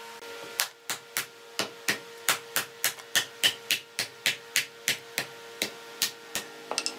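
Hand hammer striking the end of a large ebony root log in a quick, steady series of sharp knocks, about four a second, ending in a short flurry, with a steady hum beneath.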